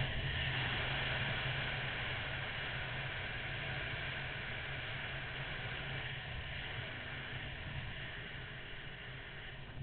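Steady wind rush on a motorcycle-mounted microphone, with the low hum of a Honda VFR800's V4 engine underneath, easing off slightly as the bike rolls along.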